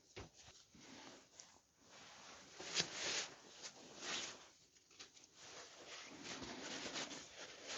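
Faint, irregular rustling and rubbing of fabric being pressed and smoothed by hand onto a freshly glued motorcycle seat.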